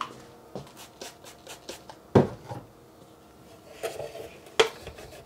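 Hands handling a small plastic diskette holder: scattered light ticks, a sharp click about two seconds in and another near the end, and a cloth rubbing inside the plastic case as grime is wiped out.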